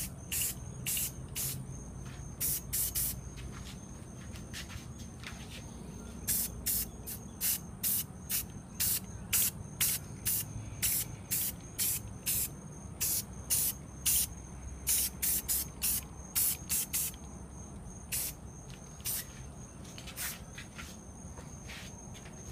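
Aerosol spray paint can sprayed in many short bursts, a quick hiss each, in runs of about two a second with brief pauses between runs.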